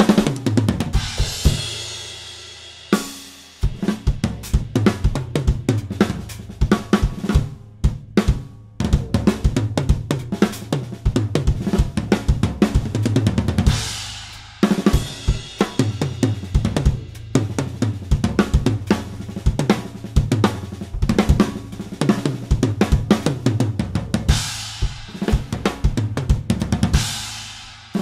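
Gretsch USA Custom drum kit played: kick, snare, toms and hi-hat, with a cymbal crash ringing out at the start, another about halfway through and a longer one near the end. Recorded raw, with no EQ or compression.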